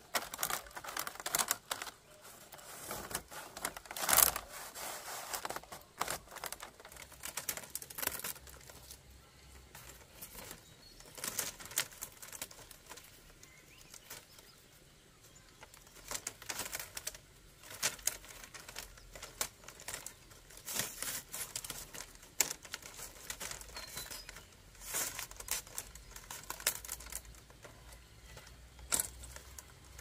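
Thin split-bamboo strips clicking, rustling and knocking against one another as they are woven by hand into a flat mat. The clatter comes irregularly, with a louder knock about four seconds in.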